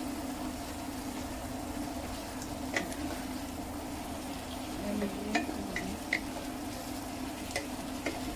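Yellow cucumber slices sizzling in a non-stick pan while a wooden spatula stirs them, with several light taps of the spatula against the pan, over a steady low hum.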